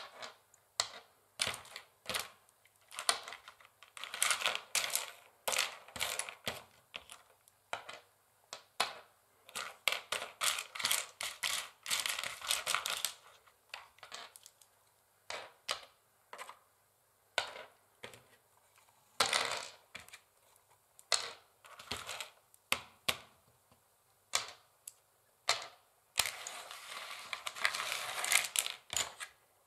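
Long fingernails tapping on a wooden chessboard in quick, irregular clicks, with several stretches of continuous scratching of the nails across the board lasting a second or more.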